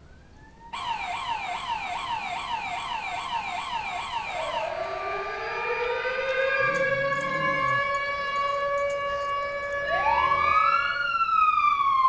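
A siren in rapid yelp, fast repeated falling sweeps, then a rottweiler howling along: a long tone that rises slowly and then holds with a slight waver. Near the end a high rising-and-falling wail joins in.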